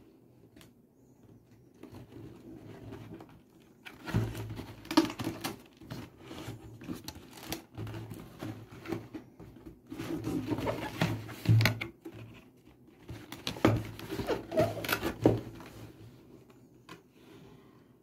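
Cardboard shoebox being handled: irregular scrapes, knocks and rustles as it is turned over against a wooden tabletop, in three busier spells, with its lid being worked loose near the end.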